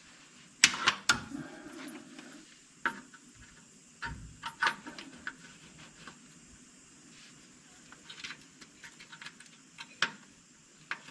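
Scattered metallic clinks and knocks of hand tools and brake parts being handled, with a duller thump about four seconds in.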